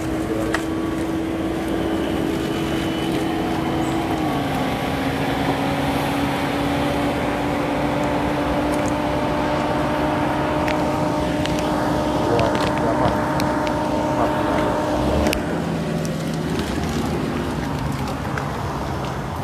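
A car running close by: a steady hum that steps down slightly in pitch about four seconds in and stops about fifteen seconds in, over the noise of a crowd standing outdoors.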